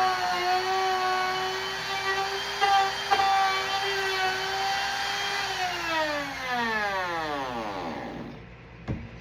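Electric power tool motor running at a steady high speed, then switched off and winding down over about three seconds, its whine falling in pitch until it stops. Two short knocks come about three seconds in.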